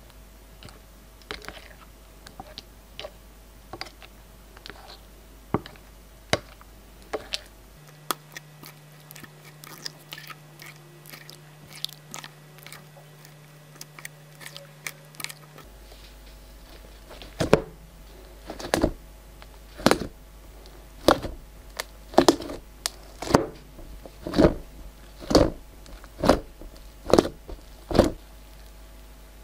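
Glossy glitter slime being worked on a glass plate: faint sticky clicks and pops while it is stirred and scraped with a clear plastic tool. A bit over halfway through, fingers press and poke the slime in a steady rhythm, about one louder sticky pop a second.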